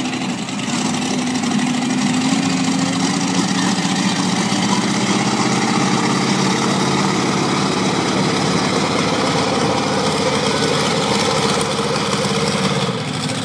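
Monster truck engine running steadily at low revs as the truck drives slowly off. The engine note lifts a little in the second half and eases off shortly before the end.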